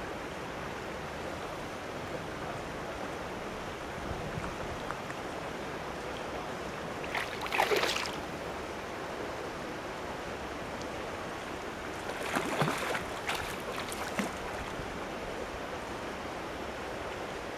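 Steady rushing outdoor noise of wind and water at a pond's edge, broken by short, sharper splashy bursts: one about seven and a half seconds in and a cluster about twelve to fourteen seconds in.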